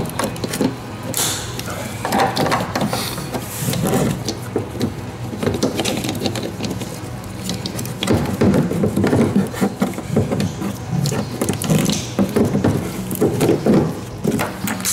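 Hands fitting a plastic mounting plate and its clip nuts against a spray-on bed liner: irregular clicks, taps and scraping, busiest in the second half, over a steady low hum.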